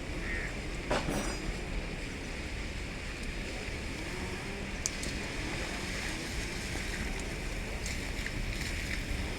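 Wind rumbling on the microphone, with one sharp knock about a second in and a few light clicks later.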